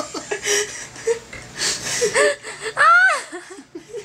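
Helpless, breathless laughter: wheezing gasps in short bursts, with a high squealing whine that rises and falls about three seconds in.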